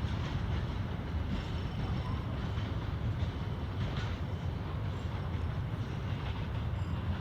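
Freight train wagons rolling past: a steady rumble of wheels on the rails, with a few faint clacks here and there.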